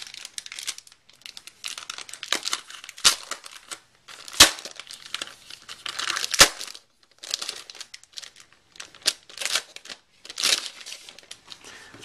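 Plastic film wrapping crinkling and rustling in irregular bursts as a keyboard is handled and lifted out of its cardboard box, with three sharp knocks.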